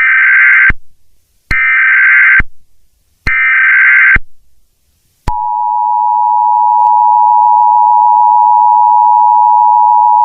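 Emergency Alert System tones: three bursts of SAME header data, each about a second long, then the steady two-tone attention signal, which starts about five seconds in. This is the alert header that opens a tornado warning broadcast.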